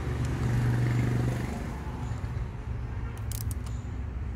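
Low, steady hum of a motor vehicle's engine going by, swelling about a second in and then easing off. Near the end come a few light metallic clicks from a socket wrench on the clutch lever clamp bolt.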